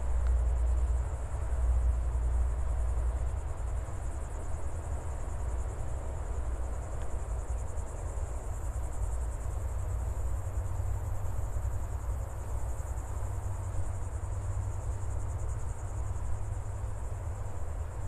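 Steady high-pitched trilling of an insect chorus, over a low rumble that is loudest in the first few seconds.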